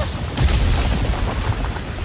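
Loud action sound effects from an animated monster fight: a dense, deep rumble with crashing and booming hits over it.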